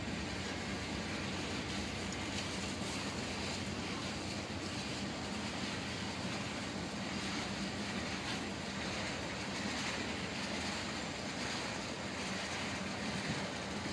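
Freight cars rolling past at steady speed, covered hoppers and then tank cars, a continuous even noise of steel wheels on rail.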